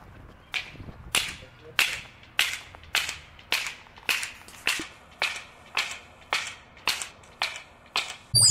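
Footsteps crunching on a gravel base at a steady walking pace, about two steps a second. Loud music starts abruptly just before the end.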